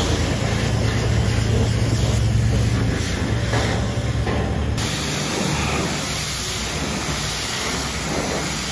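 Pressure washer running, its steady hiss of the water jet spraying onto a pickup's muddy door panels over the low hum of the pump. The hum eases about halfway through.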